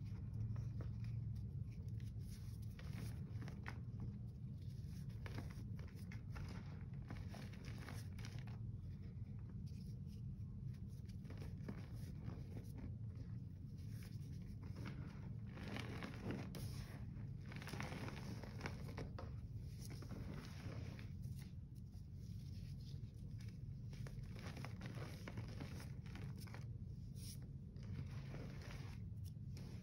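Comet scouring powder and crumbled Comet slabs crunching and rustling as a gloved hand crushes, squeezes and presses them in a sink, in irregular soft bursts over a steady low hum.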